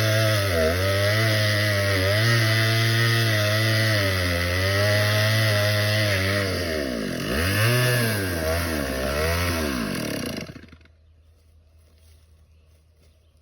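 Two-stroke chainsaw engine running, its speed sagging and recovering several times, then bogging deeper and dying about ten seconds in. The owner puts this stalling down to fuel starvation from a carburetor that needs cleaning.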